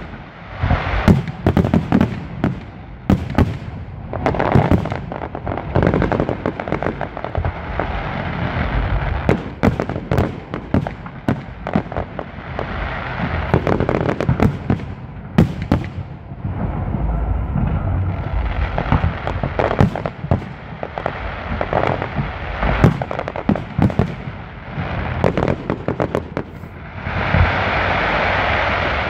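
Fireworks display: a rapid, irregular run of aerial shell bangs with crackling between them, turning into a steady dense crackle near the end.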